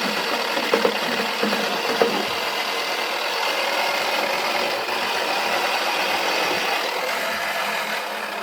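Toy washing machine running, its small motor whirring steadily as the drum turns, with a few sharp knocks in the first two seconds from a dry ball tumbling inside. The whirring starts to die down near the end.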